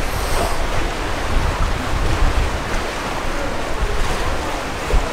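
Wind buffeting the microphone with a steady, uneven low rumble, over the rushing wash of the sea.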